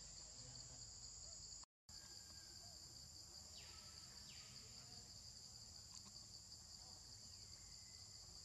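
Faint, steady, high-pitched drone of insects in forest undergrowth, cutting out completely for a moment a little under two seconds in.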